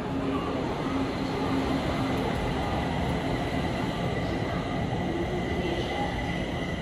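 Siemens-built Kaohsiung MRT train running into an underground station behind platform screen doors: a steady rumble of wheels on rail, with a steady whine that grows stronger in the second half as the train comes in.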